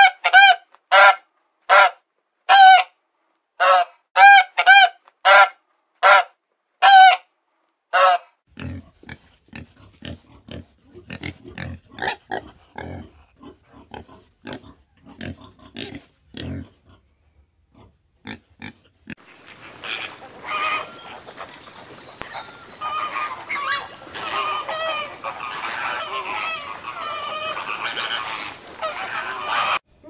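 A swan honking: about eleven short, nasal honks, evenly spaced over the first eight seconds. Then a warthog grunts and snuffles in a ragged run until about 17 s. From about 19 s there is a dense jumble of animal calls from an unseen source.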